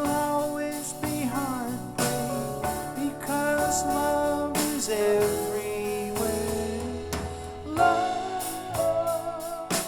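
A pop song with singing, drums and guitar played back through MarkAudio Sota Cesti MB hi-fi loudspeakers and heard through a room microphone.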